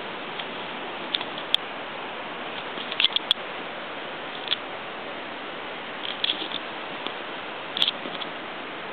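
Steady even hiss with a dozen or so light, sharp clicks and taps scattered through it, the loudest a pair about three seconds in.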